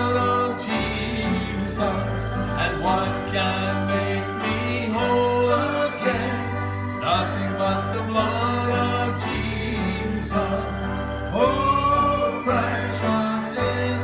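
A man sings a gospel hymn into a handheld microphone over instrumental accompaniment with sustained bass notes.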